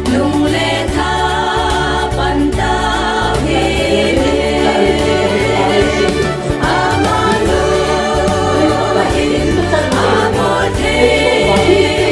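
Gospel choir singing a Christian song with instrumental backing: steady bass notes and a regular beat under the voices.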